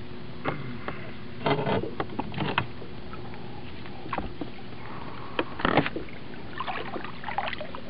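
Hooked blue catfish thrashing and splashing at the water surface as it is reeled in beside the boat, in several short splashes, the loudest about a second and a half in and just before six seconds. A steady low hum runs underneath.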